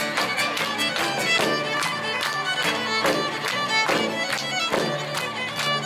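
Live Irish folk band playing an instrumental break: a fiddle carries the melody over strummed acoustic guitar, while a frame drum and hand claps keep a steady beat.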